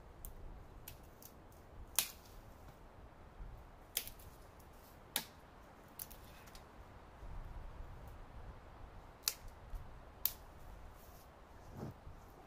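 Movement through dry forest litter: a handful of sharp clicks and snaps a second or several apart over a faint low rustle, from footsteps on dry twigs and the handling of a metal hurricane lantern.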